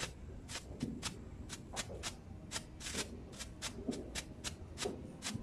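Small ground firework on the pavement sputtering sparks and crackling, with sharp pops in an uneven run of about four a second.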